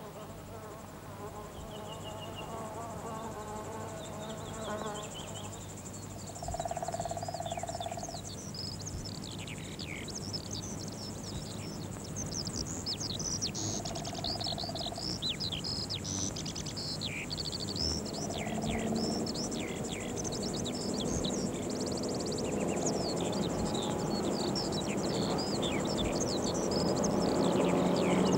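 Birds chirping with many quick falling calls, an insect buzzing past twice, and a vehicle engine drawing closer, its hum growing louder toward the end.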